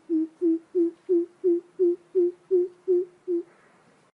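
Coucal (bìm bịp) calling: a steady series of about ten low, even-pitched hoots, roughly three a second, that stops about three and a half seconds in.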